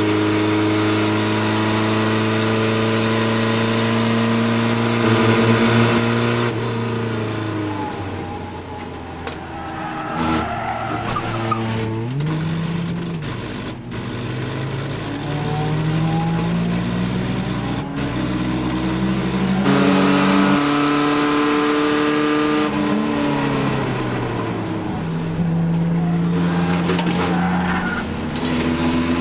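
Chevy LUV race truck's engine heard from inside the cab. It runs hard at high revs, then eases off about six seconds in, and the revs dip and climb as it goes through corners. It pulls hard again around twenty seconds in, eases off, and picks up once more near the end.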